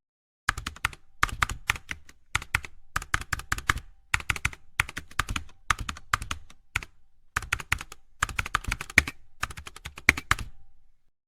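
Rapid, irregular clicking and tapping in quick clusters, a few strokes at a time, stopping about a second before the end.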